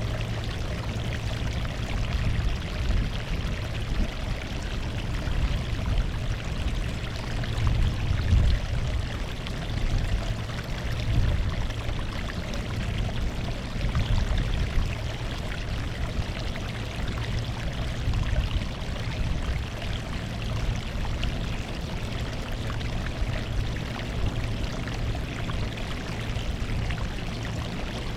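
Sea water washing and splashing along the shore: a steady rush that swells and eases every few seconds.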